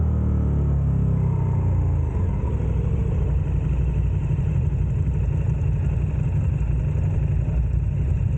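KTM 1290 Super Adventure's V-twin, fitted with a Wings exhaust, running steadily with a rough, deep rumble. Smooth pitched music fades out about two seconds in.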